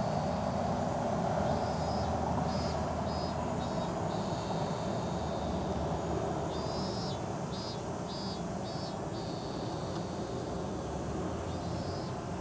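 Steady rumble of traffic on an elevated highway, slowly fading, with a high chirping call repeated in short groups of three or four pulses several times.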